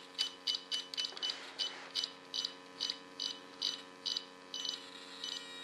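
JR 12X radio transmitter beeping at each click of its scroll roller: a quick, uneven series of short high beeps, about three a second, as the travel adjustment value for a channel is dialled up or down.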